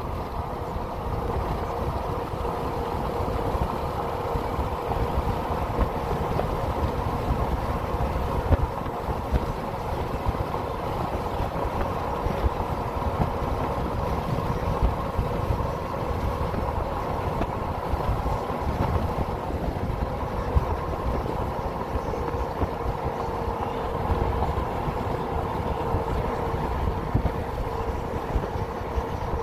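Steady drone of a vehicle driving, heard from inside the cabin: road and engine noise with a faint steady hum.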